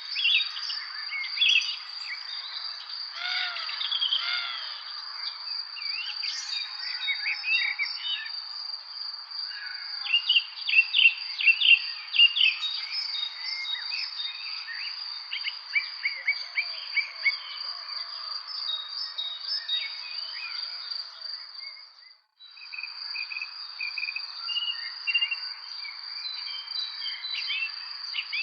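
Many songbirds chirping and calling over a steady, high insect trill, the chirps thickest about ten to thirteen seconds in. Near twenty-two seconds the whole sound cuts out for a moment, then resumes.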